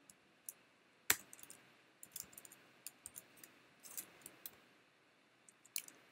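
Computer keyboard keys tapped in an irregular run of short clicks, one louder click about a second in.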